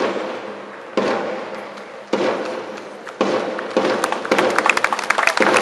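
Single drum beats about once a second, each echoing on before the next, coming faster after about four seconds. Applause breaks out at the very end.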